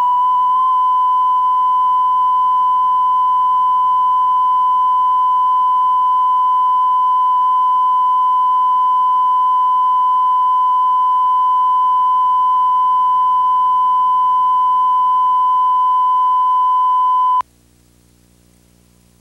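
Steady line-up reference tone that accompanies colour bars on a videotape, one unbroken pitch that cuts off suddenly near the end. A faint hum and hiss from the tape remain after it.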